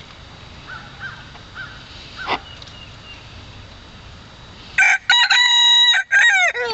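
Rooster crowing once near the end: a loud cock-a-doodle-doo with a held middle note and a falling last note. A few faint short chicken calls come before it.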